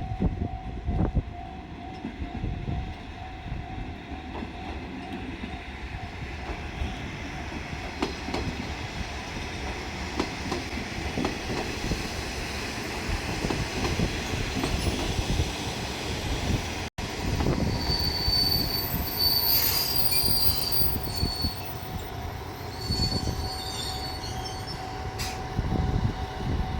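A JR Shikoku Type 1000 diesel railcar set rumbles and clatters slowly along the track, with the steady tone of a level-crossing alarm near the start and again later. After a short break about two-thirds in, the wheels squeal in high notes over the continued rumble.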